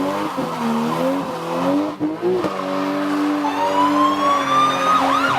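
Car tyres squealing with the engine revving, then a siren winding up with a rising wail about three and a half seconds in, breaking into quick up-and-down whoops near the end.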